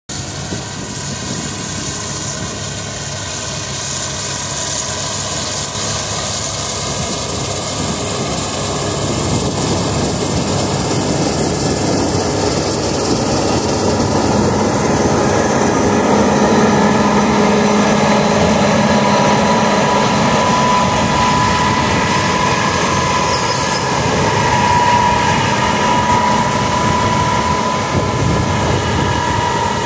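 Fendt 9T combine harvester at work cutting wheat: a steady, loud machine drone with a high whine in it. The whine grows stronger in the second half.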